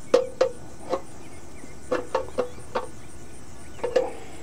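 Small pliers clicking and scraping against a metal lamppost cap and its acorn nut as the nut is loosened: about nine sharp metallic clicks in uneven groups, each with a brief ring.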